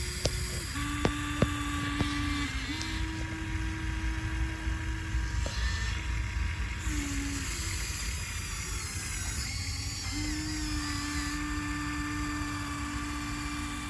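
Small electric motors of radio-controlled construction models whining at a steady pitch that shifts in steps as they stop and restart, over a low rumble, with a few sharp clicks in the first two seconds.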